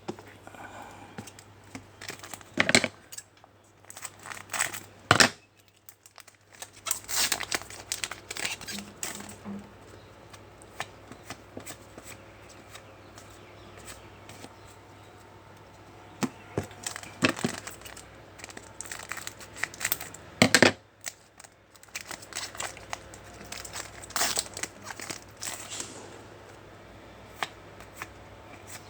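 Trading card pack wrappers being torn open and crinkled, in irregular sharp bursts with pauses between.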